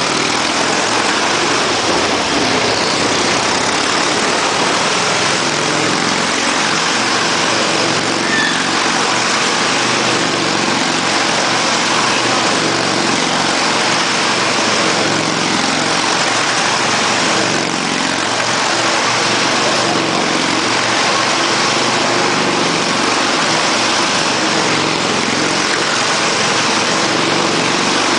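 Motorcycle engine running loud and steady as the bike rides around the vertical wooden wall of a Wall of Death drum, its note rising and falling over and over.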